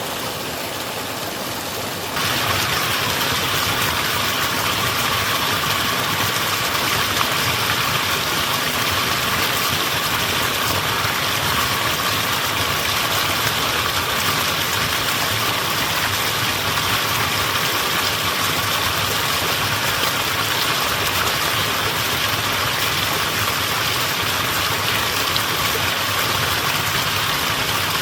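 Mountain stream water rushing steadily over rocks. About two seconds in it abruptly becomes louder and brighter.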